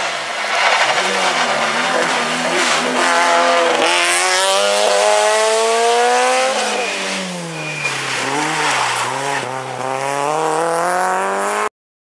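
Rally car engine at full throttle, its pitch climbing steadily, dropping back, then climbing again. The sound cuts off abruptly near the end.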